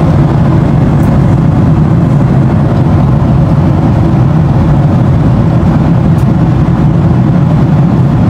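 Steady low drone of a jet airliner in cruise flight, engine and airflow noise heard inside the cabin.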